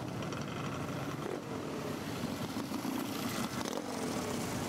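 Motorcycle engines running, a steady drone.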